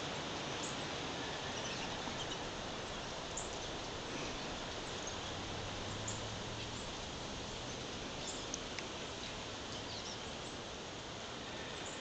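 Faint, very short high chirps of small songbirds, about a dozen scattered irregularly, over a steady hiss.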